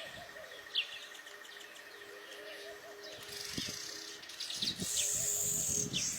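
Weaver birds chirping and chattering, with short sharp chirps about a second in and near the end and busier fine chatter from about halfway.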